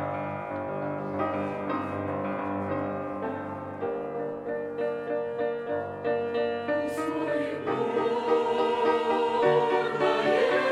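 Piano accompaniment to a church choir hymn. The piano plays alone at first, then the choir comes in singing about two-thirds of the way through.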